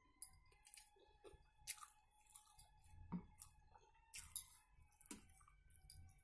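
A person eating rice and curry by hand: quiet chewing with scattered short, wet clicks and smacks.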